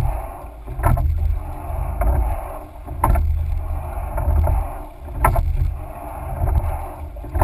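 Rowing four under way: a sharp knock from the oars in their oarlocks once per stroke, about every two seconds, over rushing water along the hull and wind rumbling on the microphone.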